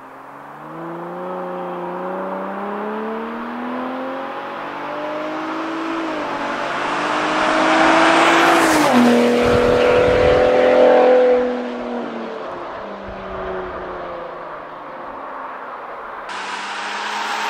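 A 2021 Ford Raptor's 3.5-litre twin-turbo EcoBoost V6 accelerates past in quiet exhaust mode, climbing through several upshifts. It is loudest as it goes by about nine seconds in, where its pitch drops sharply, and then it fades away.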